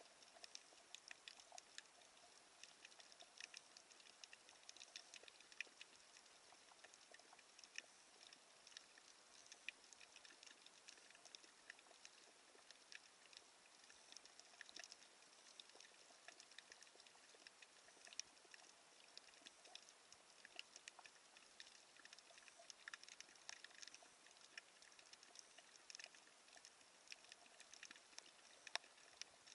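Faint underwater crackling: a steady, dense scatter of small irregular clicks and ticks, with no voice or music.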